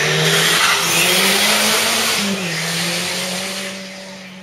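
Slalom race car's engine running hard as the car drives through the cones and passes close by. Its note drops a little just over two seconds in, then fades as the car drives off up the road.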